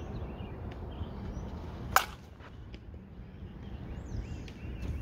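A softball bat hits a slowpitch softball once, a single sharp crack about two seconds in, during a batting-practice swing. Birds chirp faintly behind it.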